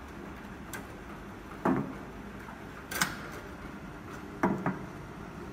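Heat shrink tunnel running with a steady hum. A few sharp knocks and clatters stand out above it: one a little under two seconds in, one about three seconds in, and a quick pair near the end.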